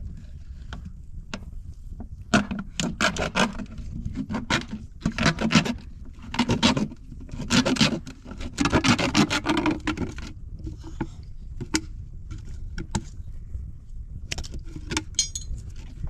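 Rattling and scraping handling noises in several short clusters, busiest in the first ten seconds, over a steady low rumble.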